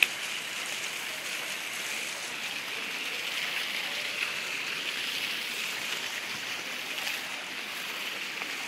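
Ground-level fountain jets spraying and splashing onto wet paving: a steady rushing hiss, with one sharp click right at the start.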